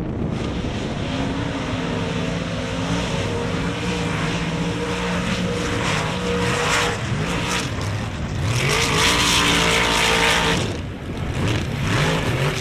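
Mud-racing truck engines running and revving, rising and falling in pitch several times, with a louder rush of noise for about two seconds past the middle as one throttles through the mud.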